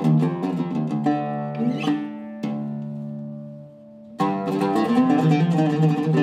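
Zaryab oud with a cedar top and Indian rosewood back, played with a plectrum: a phrase of plucked notes, then a single note left to ring and die away, then fast, closely repeated picking from about four seconds in.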